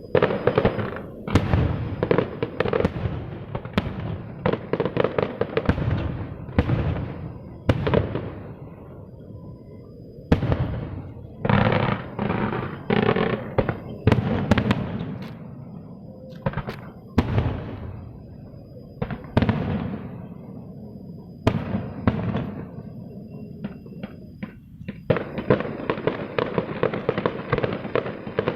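Aerial fireworks going off: repeated sharp bangs and dense crackling bursts, easing off for a few seconds about a third of the way in and again near the end before a thick run of crackling.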